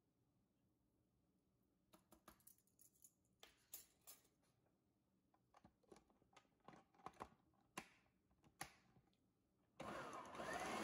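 Quiet plastic clicks and knocks as a food processor's lid is set on and locked onto the bowl, then near the end the motor switches on and runs with a steady whir and a faint rising whine.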